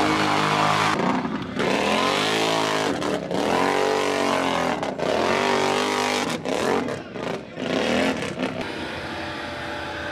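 ATV engines revving hard, their pitch rising and falling again and again as they are throttled through a mud pit, with a few brief breaks between runs. Near the end the sound settles into a steadier, lower engine note.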